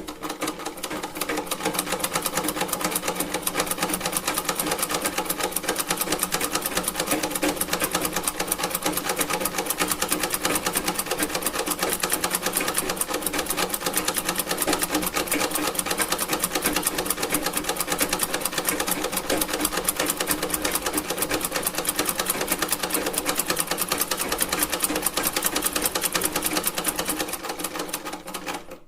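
Antique sewing machine running steadily, its needle and mechanism clattering in a fast, even stitching rhythm, then winding down and stopping near the end.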